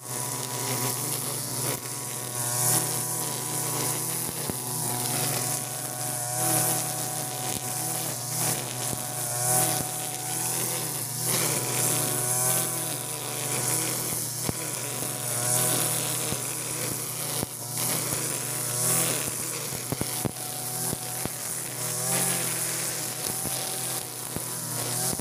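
Two-stroke brush cutter (Europa Hilt EH4300 / TB43) running at high throttle, its trimmer head whipping 2.4 mm nylon line through thick grass. The engine note dips and recovers every few seconds as the line meets the grass, over a steady hiss of cutting.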